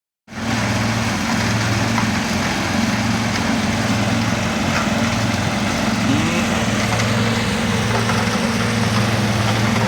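Heavy machinery engine running steadily, a low hum that swells and eases about once a second.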